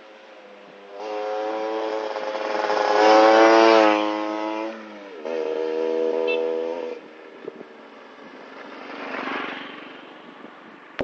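Motorcycle fitted with an aftermarket Champion exhaust accelerating, its engine note rising under throttle. The pitch drops at an upshift about five seconds in, climbs again briefly, then falls away as the throttle closes about seven seconds in.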